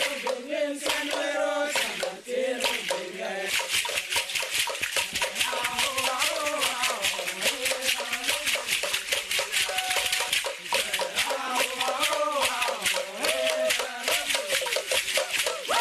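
Men chanting together while dancing, with shell ankle rattles clattering in a fast, even rhythm as their feet stamp the ground.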